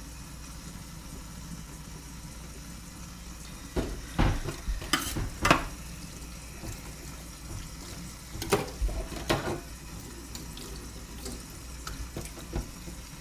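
Fish being handled during cleaning: short clusters of knocks and scrapes on the work surface about four seconds in and again about eight and a half seconds in, with a last knock near the end, over a steady low hum.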